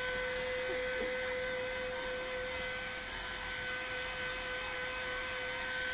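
Bed Head Curls in Check 1875-watt diffuser hair dryer running steadily on its low, cool setting: a constant motor hum with a steady whine.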